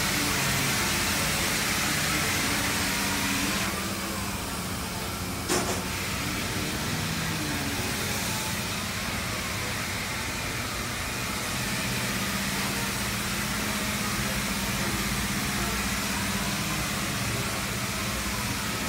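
A truck engine idling steadily, with one sharp knock about five and a half seconds in.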